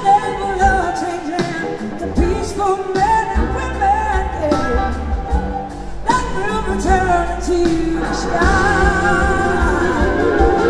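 Live band playing a soul-rock song: a woman singing over electric guitar, drums and bass.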